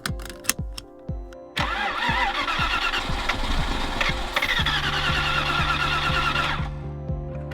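Porsche Cayenne 4.8-litre V8 starting about a second and a half in. The revs flare up and wander on catching, then settle into a steady idle about three seconds later. Background music with a steady beat runs underneath.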